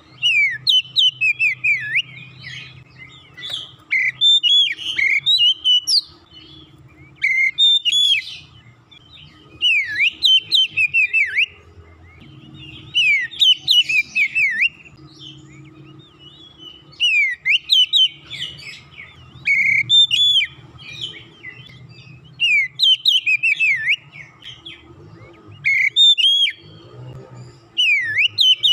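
Oriental magpie-robin singing in full, lively song: repeated bursts of loud, sweeping whistled phrases, each a second or two long, with short pauses between.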